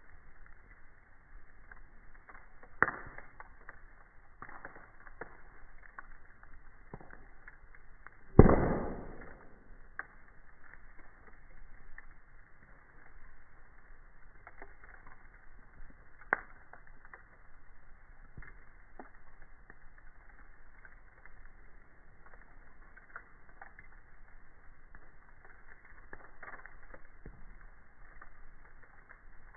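Wood campfire burning, crackling steadily with scattered sharp pops. The loudest is a single crack about eight seconds in, and there are smaller ones near three and sixteen seconds in.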